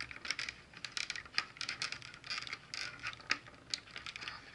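Clear plastic packaging tray crackling and clicking under handling, with many irregular sharp ticks, as hands work at the rubber bands holding a plastic toy figure in it.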